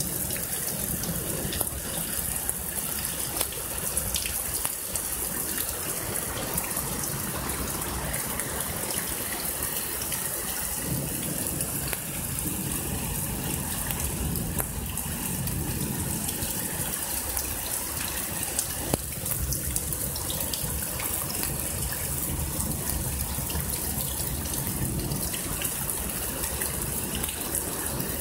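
Heavy storm rain pouring steadily, with water splashing and running off, and now and then a sharper drip close by.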